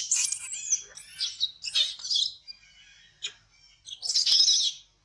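Baby macaque crying in a tantrum: shrill, high-pitched screams in several separate bursts, the longest and loudest near the end.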